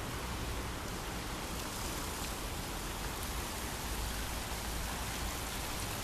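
Water curtain, a thin sheet of water falling down a dark stone wall into a lotus pond, giving a steady splashing hiss.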